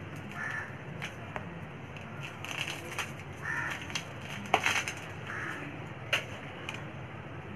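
A table knife clicking and scraping against a plastic tray and the cake's edge while chocolate syrup is spread over a cake, a handful of sharp clicks scattered over a steady low hum.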